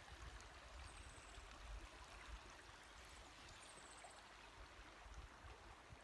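Near silence: faint flowing creek water, with a soft low rumble, while a bass is held in the water and let go.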